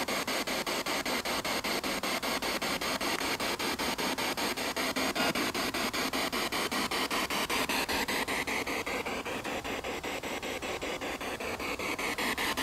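Spirit box (radio-sweep ghost box) scanning through radio stations: a steady hiss of static chopped into rapid, evenly spaced clicks. Faint wavering snatches of radio sound come through in the static late on.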